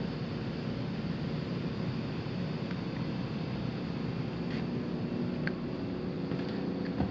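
Steady rushing hum of an HVAC air handler's system running, with a few faint ticks and a small knock near the end.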